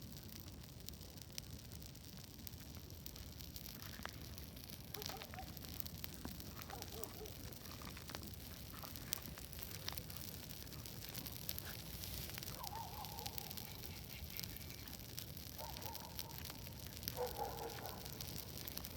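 Bonfire crackling, with many sharp pops over a low steady rumble. A few short wavering calls come in from time to time, mostly in the second half.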